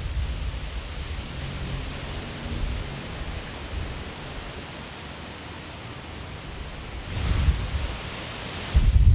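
Strong gusty wind buffeting the microphone, a low rumbling roar with a hissing rush, easing in the middle and gusting up again about seven seconds in and near the end.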